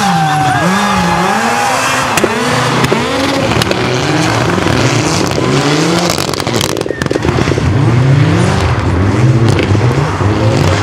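Rally car engines revving hard, the pitch rising and dropping again and again as the cars accelerate and shift through the gears, with a few sharp cracks from the exhaust.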